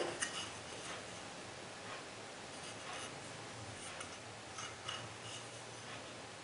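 Faint scattered clicks and light rubbing as the grips and their packaging are handled.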